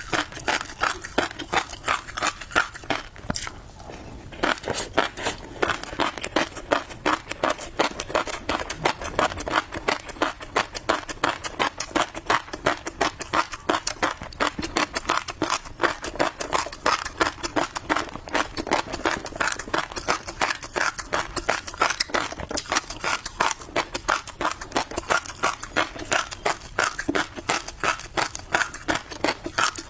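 Close-miked chewing of crunchy tobiko (flying fish roe), the tiny eggs bursting between the teeth as a dense, rapid run of crackling pops and clicks, with a brief lull about three seconds in.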